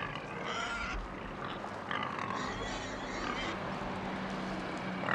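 Pigs grunting and oinking on and off, over a steady background hiss.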